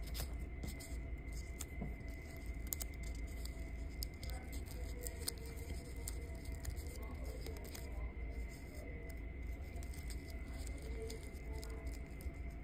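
Light, scattered clicks and taps of small jewelry-making items being handled on a cloth-covered work table, over a steady low room hum with a thin high whine.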